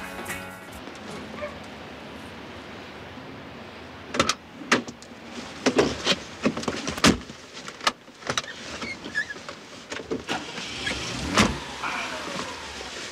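Car doors being opened and shut as people climb into a car: a string of sharp clicks and knocks from about four seconds in, the loudest about seven seconds in, over a steady low background.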